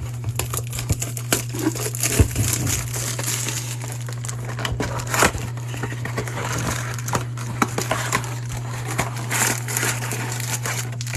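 Crinkling and crackling of plastic wrap and card-pack wrappers being torn open and handled as a 2022 Bowman baseball blaster box is opened, in irregular bursts over a steady low hum.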